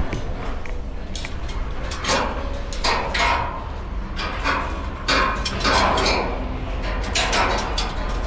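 Irregular metallic clanks and knocks, about one a second, from climbing the steel ladder of a construction crane, with a steady low rumble underneath.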